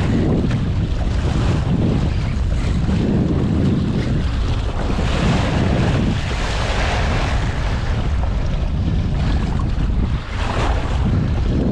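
Wind buffeting the microphone over the wash of choppy sea water around a small boat: a steady, loud rushing noise.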